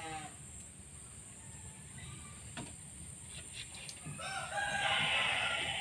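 A rooster crowing once, a long crow starting a little past four seconds in, with a few faint knocks of wooden boards being handled before it.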